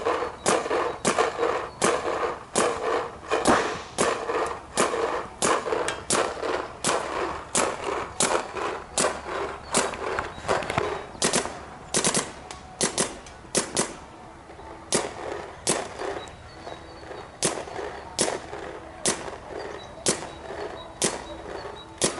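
Paintball markers firing a long run of single shots, about two a second, easing off briefly past the middle and then picking up again.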